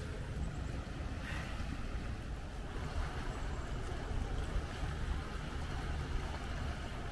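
Steady low rumble under an even wash of outdoor noise, with a brief hiss about a second in.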